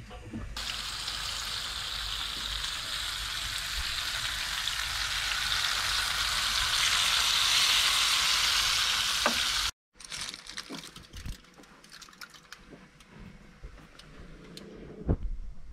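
Floured pieces of sea bass sizzling in hot oil in a frying pan, the sizzle growing louder. About ten seconds in it cuts off abruptly, and light clicks and a knock follow.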